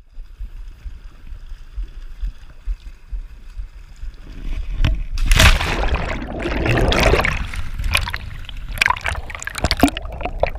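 Lake water on a submerged action camera: a low rumble of water, then about five seconds in a loud splash as the camera goes under, followed by underwater bubbling and gurgling with crackling bubble pops.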